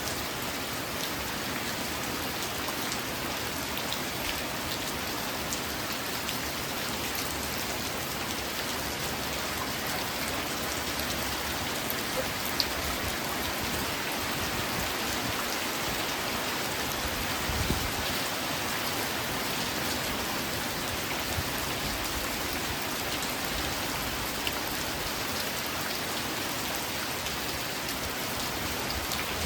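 Steady rain falling on a surface, an even hiss with scattered individual drops ticking through it.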